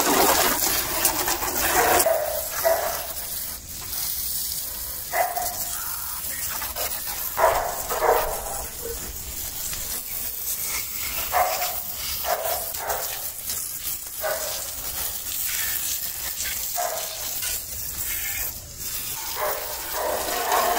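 Steady hissing spray of water from a hose-fed water gun, splashing onto a motorcycle's wheel and bodywork, with short animal calls breaking in now and then.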